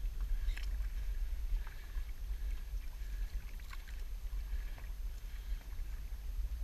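Boat-side ambience: a low, uneven rumble of wind and water lapping against the boat's hull, with a few faint knocks and splashes scattered through it.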